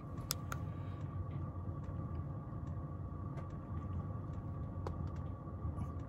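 Chinese diesel heater running on a low setting, a steady low hum with a faint steady whine, with a few faint, scattered ticks.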